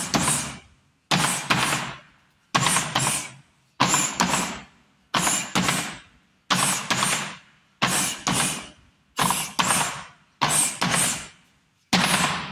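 Bare-knuckle punches landing on a hanging canvas sand bag in quick left-right pairs, one pair about every second and a half. Each pair trails off over about a second.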